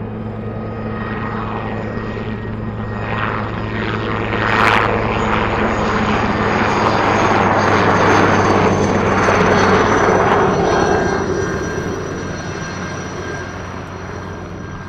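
Helicopter carrying an underslung bait-spreading bucket flying past. The steady rotor and engine noise swells to its loudest around the middle, then fades.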